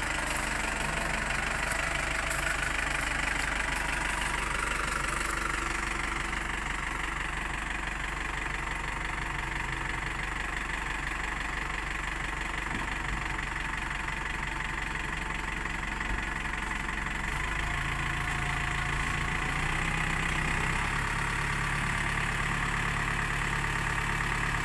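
Farm tractor's diesel engine running steadily close by, with a truck engine running behind it, while the tractor tows a sugarcane truck stuck in the soft field. About two-thirds of the way in, the engine note changes.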